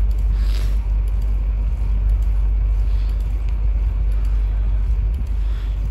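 Steady low rumble of wind buffeting the microphone of a camera riding on a moving bicycle.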